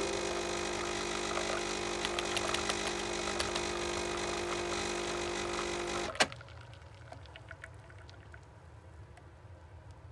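Coffee machine's pump humming steadily while it dispenses coffee into a ceramic mug, cutting off with a click about six seconds in. Faint drips then fall into the coffee.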